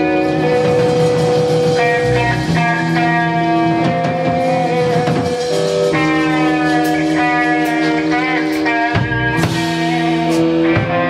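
Live band playing experimental, psychedelic-rock-style music: sustained guitar chords that change every second or two, with a few sharp drum hits near the end.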